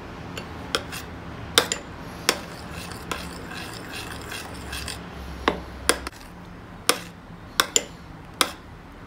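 A metal spoon stirs a warm mixture of gelatin, glucose syrup and melting shortening in a white ceramic bowl, clinking against the bowl about a dozen times at irregular moments, with soft scraping in between.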